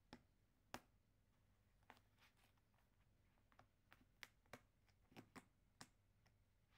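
Shiba Inu puppy chewing the edge of a foam puzzle mat: faint, irregular small clicks and snaps, about a dozen, bunching up in the second half.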